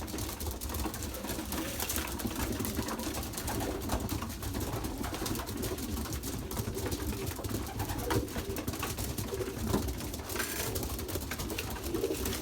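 A loft full of young racing pigeons cooing continuously, with scattered clicks and scuffles from the birds.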